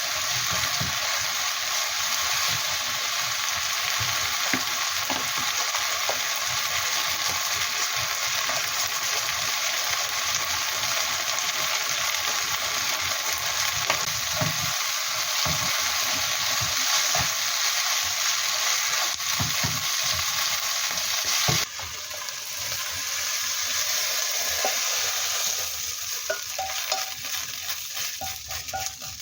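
Food stir-frying in a hot pan with a steady sizzle and the occasional knock of a stirring utensil against the pan. The sizzle drops suddenly a little over two-thirds of the way through and fades near the end.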